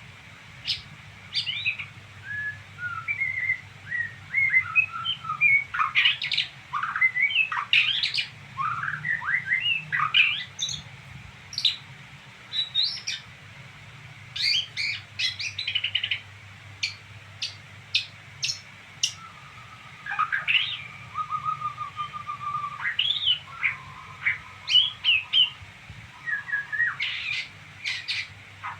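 A songbird twittering: a long, busy run of quick chirps and rising and falling whistled notes, with a steadier trill partway through.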